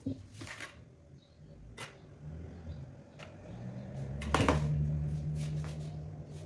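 Scattered clicks and knocks from handling things in a kitchen, the loudest about four seconds in, with a steady low hum that starts just before it and carries on.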